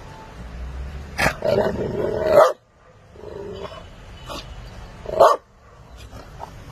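Pit bull-type dog vocalizing: a long, loud grumbling call that cuts off sharply, then a short softer one, and a short sharp bark-like call about five seconds in.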